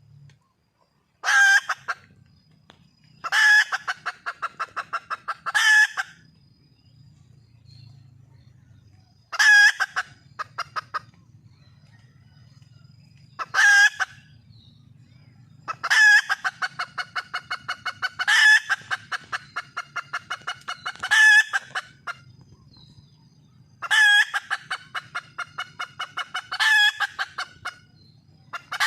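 Junglefowl hen calling for a mate: about ten calls, each a loud first note followed by a quick run of fading clucks, a few seconds apart.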